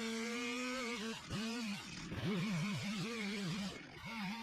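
Two-stroke chainsaw running at high revs, its pitch dropping and climbing back again and again as the throttle is worked and the chain bogs and recovers in the cut.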